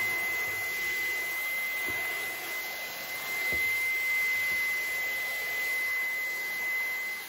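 Dyson cordless stick vacuum running steadily while vacuuming up sand. A high, even whine sits over a rushing hiss of suction.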